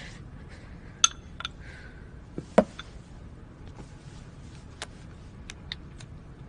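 Quiet room tone with a few scattered small clicks and taps as a smartphone is handled and operated. The loudest is a duller tap about two and a half seconds in.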